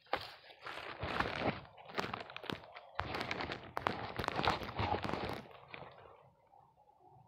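Close crunching and rustling as the phone is handled against a white woven plastic sack, in irregular bursts that stop about five and a half seconds in.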